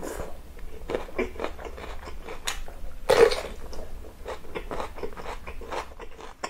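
Close-miked crunching bites into a raw red bell pepper, then chewing, with the loudest crunch about three seconds in.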